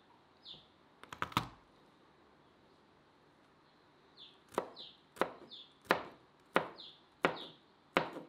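Chef's knife slicing a peeled garlic clove on a cutting board: a quick cluster of knocks about a second in, then about six evenly spaced chops from the middle on.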